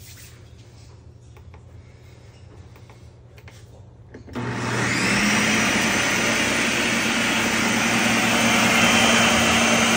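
A countertop blender switched on about four seconds in after a few faint handling clicks. Its motor spins up with a quickly rising whine, then runs steadily on a low setting, churning a thick fruit-and-greens smoothie.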